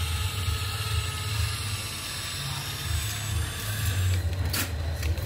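Radio-controlled model excavator's small electric motors and gearboxes whirring as the arm moves, with a short sharp scrape about four and a half seconds in.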